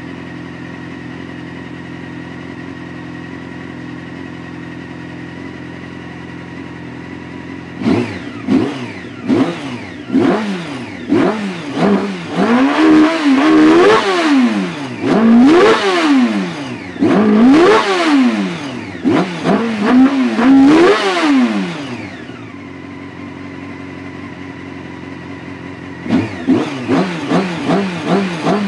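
Carburetted motorcycle engine on its first run after a top-end rebuild, idling steadily and then revved in a string of quick throttle blips, each rising and falling in pitch. It drops back to idle for a few seconds and starts revving again near the end.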